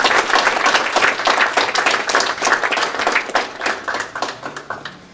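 Audience applauding, dense clapping that thins out and fades away in the last second.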